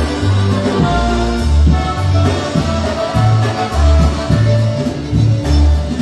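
A live polka band playing during a sound check: a loud, steady bass line changing note about every half second under a melody on sustained instruments.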